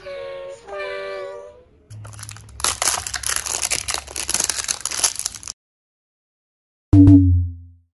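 A short pitched jingle, then the crinkling and crackling of a thin clear plastic clamshell package being handled and opened by hand. Near the end, a single sudden hit with a brief low ring, the loudest sound here.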